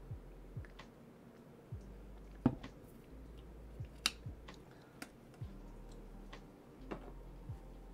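A drinking cup being handled and set down on a wooden table: scattered light knocks and clicks, the sharpest about two and a half and four seconds in.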